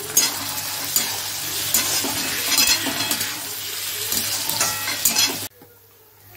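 Chopped tomatoes and onions sizzling in hot oil in a kadai while a metal spatula stirs and scrapes against the pan. About five and a half seconds in the sound drops suddenly to a faint sizzle.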